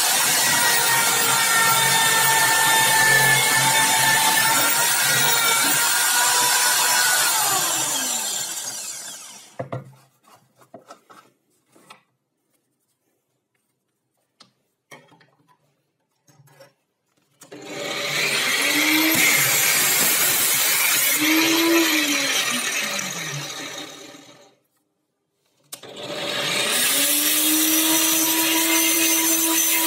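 Drill press running as it drills into a wooden block, then switched off, its pitch falling as it spins down. After a few quiet handling clicks, a power tool starts, runs and spins down again. Near the end, a stand-mounted angle grinder starts up, rising in pitch, and runs steadily.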